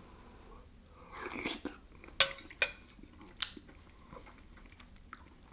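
A person eating canned chicken and dumplings: soft chewing and mouth sounds about a second in, then three sharp clicks over the next second or so.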